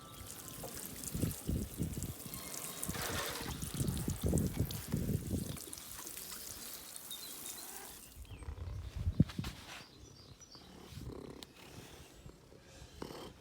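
Water running with a steady hiss and some louder low thumps, which stops abruptly about eight seconds in. A quieter stretch with a few short knocks follows.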